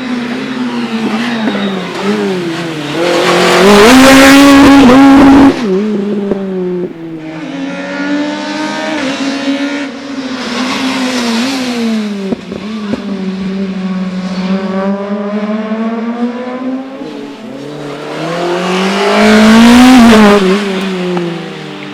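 Fiat Punto rally kitcar's engine under hard acceleration, its pitch climbing and dropping again and again through the gear changes. It grows loudest twice as the car comes close, the first time cutting off suddenly about five seconds in.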